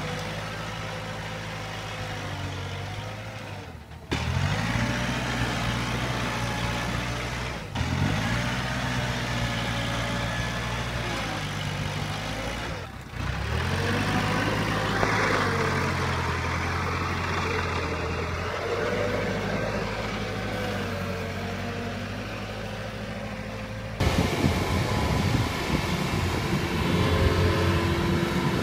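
Kubota tractor's diesel engine running under load as it pushes through heavy mud, its pitch swinging up and settling at each new push. Near the end it gives way to a Kubota combine harvester's engine, a rougher, noisier rumble.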